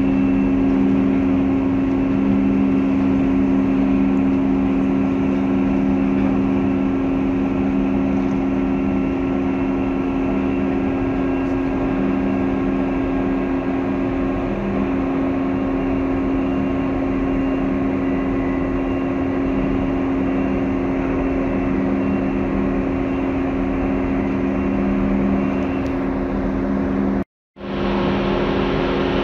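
Steady hum of a container ship's machinery: several constant low tones over a rushing noise. It breaks off for a split second near the end and then resumes.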